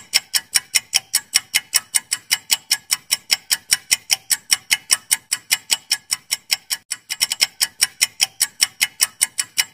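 Clock-ticking sound effect marking a quiz countdown timer: sharp, even ticks at about five a second, starting and stopping abruptly, with a brief stutter about seven seconds in.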